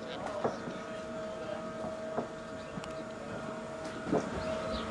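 A steady machine hum holding several even tones, with a few sharp knocks about two seconds apart.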